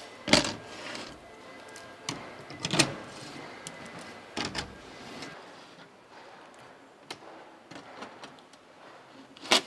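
Hand tools clicking and clacking against bolts and underbody panels as a car's underside is fastened: a handful of sharp knocks, the loudest about a third of a second in and just before the end, with lighter ticks between.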